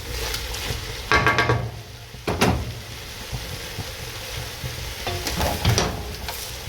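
A pan of minced meat, tomatoes and grated carrots sizzling as shredded cabbage is added and stirred in. A utensil scrapes and clatters against the pan about a second in, again at two and a half seconds, and a few times between five and six seconds.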